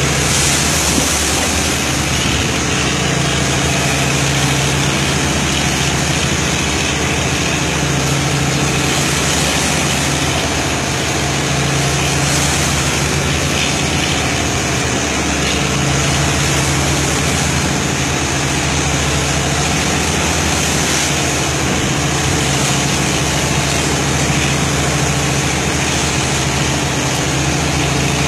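A boat's engine running steadily, its low hum swelling and fading every few seconds, over a continuous rushing noise.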